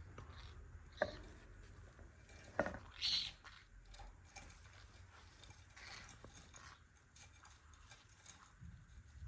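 Two green-cheeked conures scuffling about, with light pattering and tapping, two sharp clicks and a brief high squeak about three seconds in.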